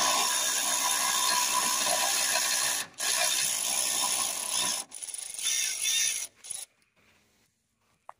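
A ratchet on a socket extension running bolts out of the alternator belt tensioner bracket: a dense, continuous ratcheting for about three seconds, a brief break, then more in shorter spells, stopping well before the end.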